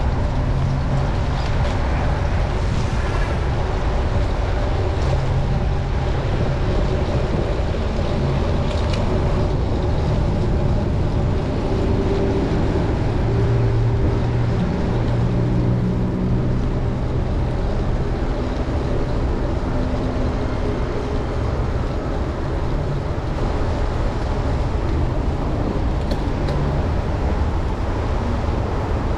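City traffic heard from a moving bicycle on rain-wet streets: a steady low rumble with the hum of nearby vehicle engines coming and going.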